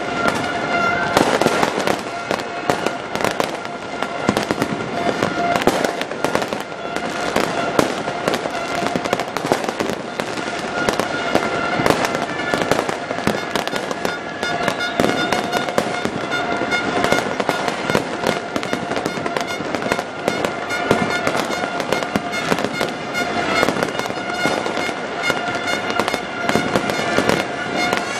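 Many fireworks bursting and crackling without a break, a dense run of overlapping bangs, over a steady pitched drone.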